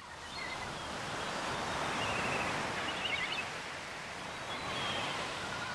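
Beach ambience: a steady wash of surf that swells in over the first second, with a few faint high bird chirps over it.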